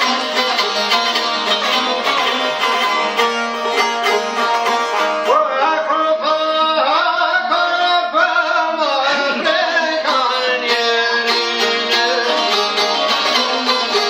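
Albanian folk music on plucked long-necked lutes, çifteli and sharki, strummed together in a steady rhythm. A man's voice sings over them from about five seconds in until about ten seconds.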